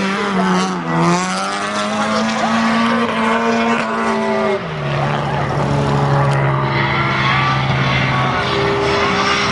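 Drift car's engine held at high revs while its tyres screech through a long slide. The engine note stays high and steady, edges up, then drops to a lower held pitch about halfway through.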